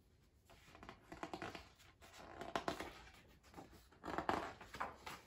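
Pages of a large picture book being turned and handled, the paper rustling and scraping in three short spells.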